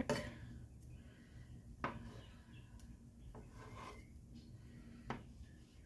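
Faint low sizzle of a buttered grilled cheese sandwich cooking in a nonstick frying pan on a pan that has not fully heated, with two light knocks, about two seconds in and again about five seconds in.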